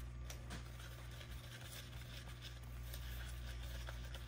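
Stir stick mixing glitter-laden epoxy resin in a mixing cup, with faint soft scraping and light ticks against the cup's sides, over a steady low hum.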